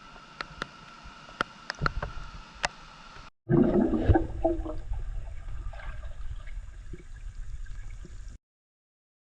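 Water sloshing and gurgling close to the microphone. It starts suddenly about three seconds in and cuts off abruptly about a second before the end, preceded by a quiet stretch of scattered clicks over a steady high tone.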